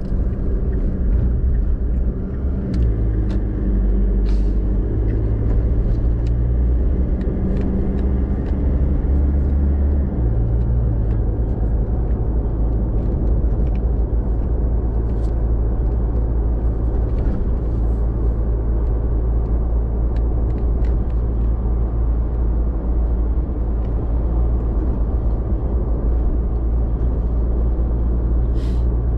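Car driving, heard from inside the cabin: a steady low engine and road rumble. The engine's note changes about ten seconds in, and faint clicks are scattered through it.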